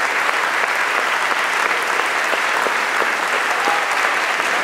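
Audience applauding, many hands clapping in a steady, dense stream with no break.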